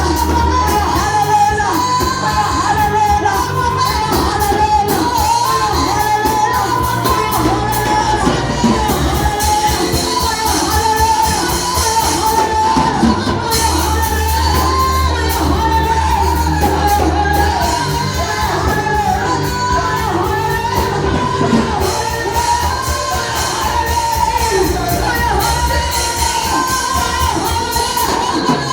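Voices singing a praise and worship song over live band accompaniment with a heavy bass line and a steady beat.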